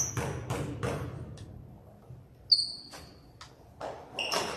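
A basketball bounced on a hardwood gym floor several times, about two or three bounces a second, then a sharper, louder bang about two and a half seconds in, with a short high squeak of sneakers on the court and a few more thuds after it.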